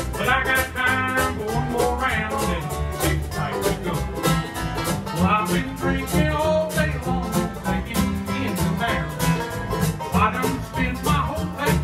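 Bluegrass band playing an up-tempo number: banjo and guitar picking over a moving bass line, with a steady quick beat.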